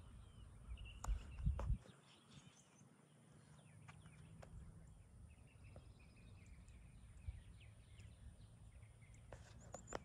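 Faint outdoor ambience: a low wind rumble on the microphone and a few footsteps on asphalt in the first two seconds, with distant birds chirping now and then.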